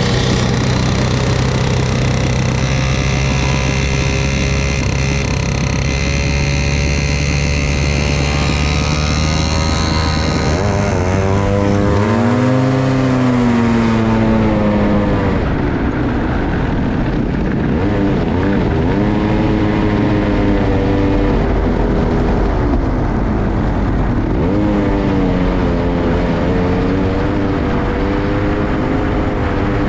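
Racing kart's single-cylinder engine running loudly at a steady speed, then, from about twelve seconds in, revving up and down over and over as the kart accelerates and brakes through the corners.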